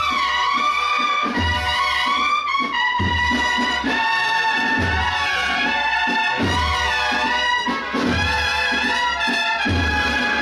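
Holy Week procession band playing a march outdoors: brass carrying a melody over a bass drum beat.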